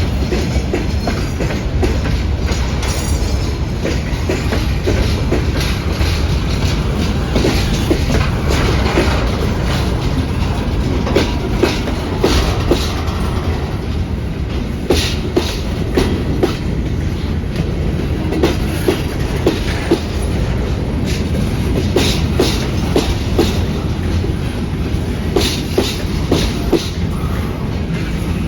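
Freight train rolling past: a steady heavy rumble of the wagons with clickety-clack of wheels over rail joints, the clacks coming more often in the second half.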